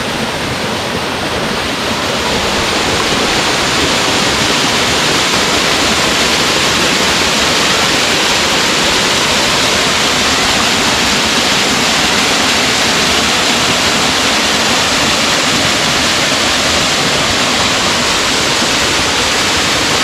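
Small forest waterfall falling over rocks: a steady, dense rush of splashing water that gets a little louder about two seconds in.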